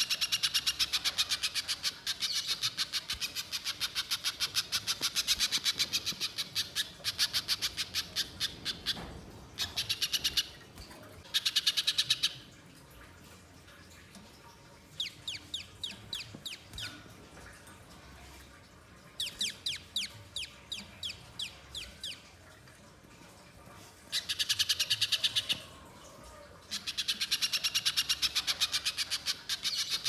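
Spiderhunter giving long, fast chattering runs of sharp high notes in several bouts. In the middle the runs give way to a stretch of separate downward-sweeping notes.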